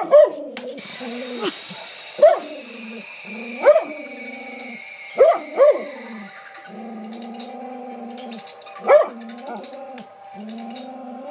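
Dog barking about seven times at uneven intervals, some barks in quick pairs: wary alarm barking at something that frightens it.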